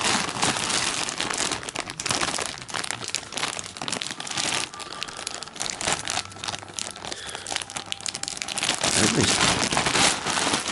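Clear plastic bags crinkling and rustling as bagged, coiled audio cables are rummaged through and handled, a dense, irregular run of crackles.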